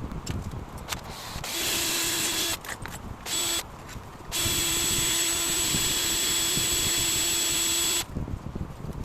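A power drill's motor running at a steady speed in three bursts as the trigger is pulled and released: a short one, a very brief one, then a longer run of nearly four seconds. Each burst starts and stops abruptly.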